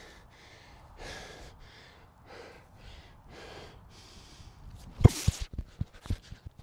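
An athlete breathing hard in a crouched three-point stance, with a sharp breath every second or so. About five seconds in he explodes into an uphill sprint, with a sharp burst and then a quick run of thuds from his feet driving off the grass, about four a second.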